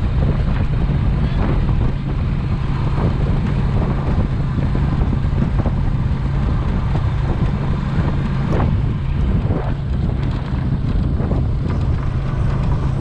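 An engine running steadily at a constant low hum, with wind buffeting the microphone.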